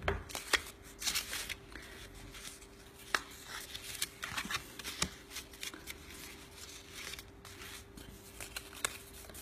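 Cardstock flower petals being handled and pressed down by hand: light paper rustling with scattered clicks and taps.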